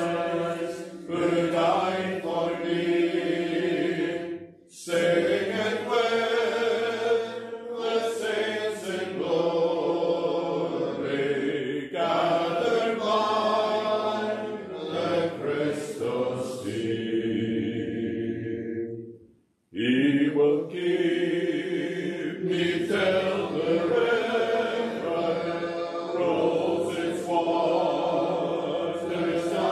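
Congregation singing a hymn together in slow, sustained phrases, with short breaths between lines; one break near two-thirds through falls almost silent.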